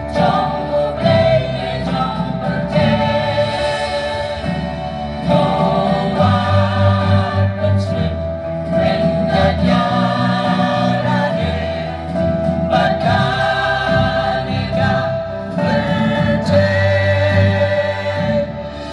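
Mixed church choir of women's and men's voices singing a hymn in harmony.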